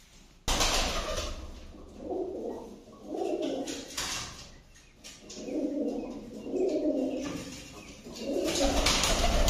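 Domestic fancy pigeons cooing in repeated phrases, starting with a sudden loud rustle about half a second in.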